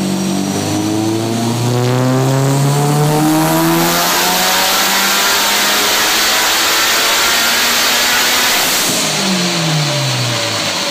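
2006 Subaru STi's turbocharged flat-four, with a GT4088R twin-scroll turbo, making a full-throttle pull on a chassis dyno. The engine note rises for about three and a half seconds with a high whine climbing alongside it, holds at high revs as a loud rush for about five seconds, then the revs fall near the end.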